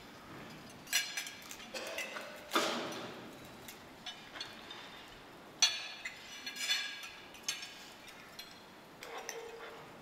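Scattered clinks of cutlery and glassware at dining tables: irregular sharp, ringing strikes a second or so apart, the loudest about two and a half seconds in.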